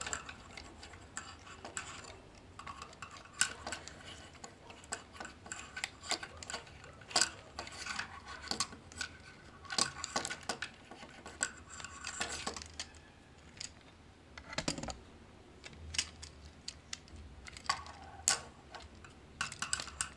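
Hard plastic parts of a Takara Masterpiece MP-25 Tracks Transformers figure clicking, tapping and rattling as they are handled and fitted during transformation: many small irregular clicks.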